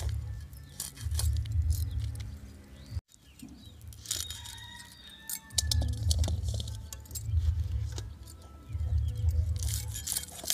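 Fish scales being scraped off a fish against the iron blade of a bonti: quick, crackly rasping strokes, with a brief cut to silence about three seconds in. A low rumble swells and fades underneath, and a bird chirps a few times.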